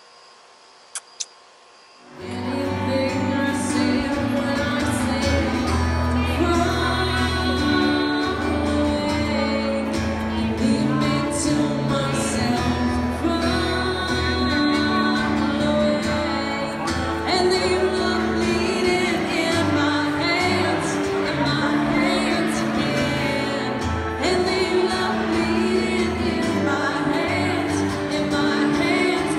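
Live acoustic music: a woman singing with acoustic guitar accompaniment and a full bass line. Before it starts abruptly about two seconds in, there is a short quiet stretch with two faint clicks.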